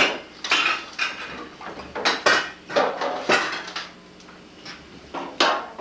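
Dishes and silverware clattering as they are handled at a kitchen sink. A quick run of sharp clinks and knocks comes in the first three and a half seconds, then one more clink near the end.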